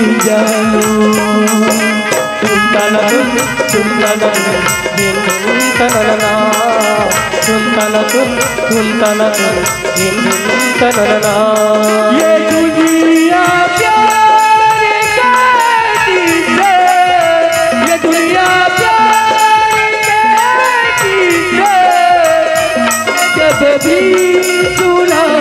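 Live Chhattisgarhi folk music amplified through a PA: harmonium and hand drums keep a steady beat with a rattling percussion pulse. From about halfway through, a man's singing voice carries the melody over it.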